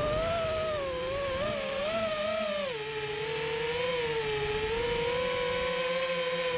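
FPV racing quadcopter's electric motors and propellers whining, recorded on the drone's onboard camera. The pitch wavers up and down with the throttle, drops about two and a half seconds in, then holds fairly steady.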